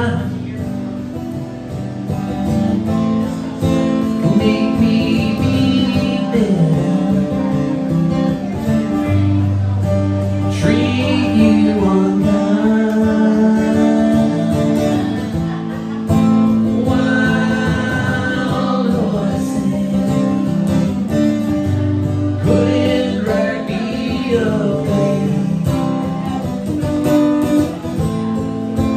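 A man singing while strumming an acoustic guitar, a solo live performance of a song.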